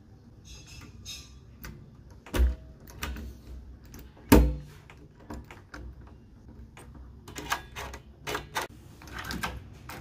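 Metal clicks and knocks of a doorknob assembly being pushed into a wooden door and seated onto its latch. There are two louder knocks about two and a half and four and a half seconds in, and a run of lighter clicks near the end.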